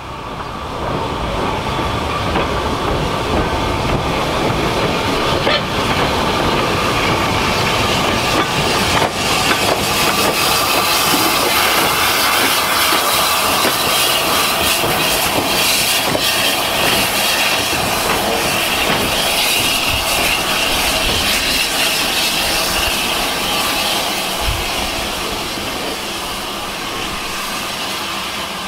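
LSWR Urie S15 4-6-0 steam locomotive No. 506 running light engine past at low speed: the wheels clatter over the rail joints with some squeal, and steam hisses. The sound builds about a second in and eases a little near the end as the engine moves away.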